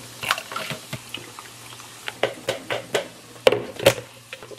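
Salad leaves being washed in the water-filled plastic bowl of a salad spinner: water sloshing and dripping, with light plastic knocks and clatter, the loudest two about three and a half seconds in.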